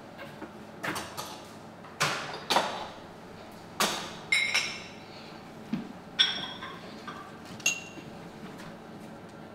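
Dishes and a glass being handled and set down: a series of sharp knocks and clinks, a few of them ringing briefly with a glassy tone.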